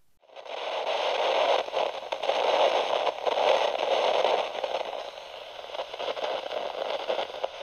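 Crackling static sound effect, an old-radio or old-film hiss and crackle with little bass or treble. It starts just after the cut, gets quieter in its second half and stops with a brief sharp crackle.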